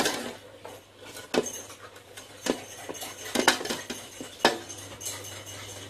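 Metal ladle clinking and scraping against a wok as stir-fried luffa is scooped out onto a plate: about six sharp clinks, spaced irregularly.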